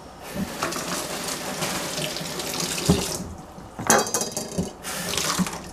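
Kitchen tap running, water pouring and splashing, with a short break about three seconds in. A brief crackly clatter follows about four seconds in, and then the water runs again briefly near the end.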